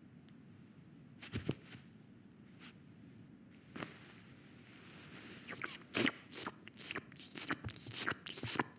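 Low room tone with a couple of soft clicks, then from about five and a half seconds in a fast, irregular run of crackling, crunching and scraping sounds that grows louder.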